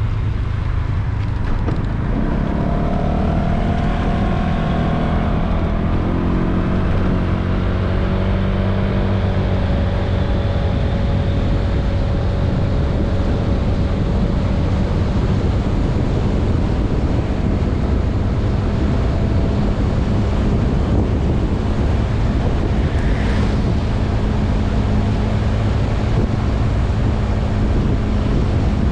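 Honda Vision 110cc scooter's single-cylinder engine running under riding speed, heavily mixed with wind noise on the microphone. The engine pitch shifts during the first ten seconds or so, then holds steady.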